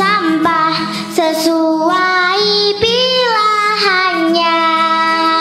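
A child's voice singing a song over instrumental backing, with long held notes that slide between pitches.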